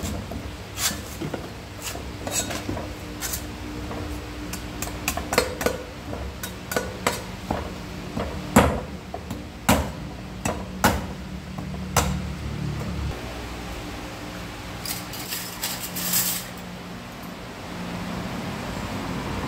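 Heavy cleaver chopping the husk off a fresh green coconut on a wooden chopping block: a long run of sharp, irregular chops, with a few more about fifteen seconds in.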